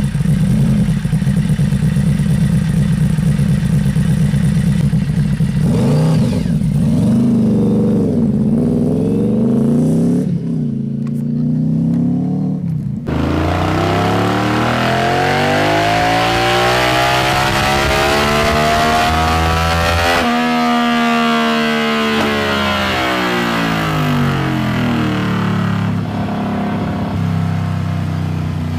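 Yamaha V-Max's V4 engine through a twin-silencer aftermarket exhaust, idling steadily and then blipped a few times. After a cut about halfway through, the V-Max is run on a dyno: the engine pitch climbs steadily for about seven seconds to high revs, then falls back as the throttle closes.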